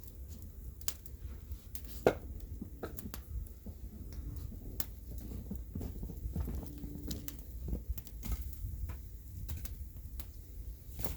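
Bonfire crackling: irregular sharp pops and snaps from the burning wood, one louder pop about two seconds in, over a steady low rumble.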